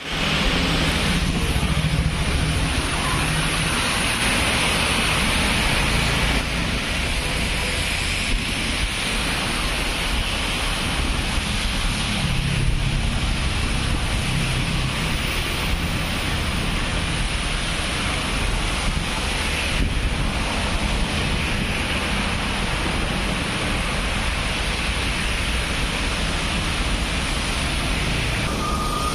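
Steady rush of wind buffeting the microphone, with rain and tyre noise from a vehicle moving on a wet road and a low engine rumble underneath.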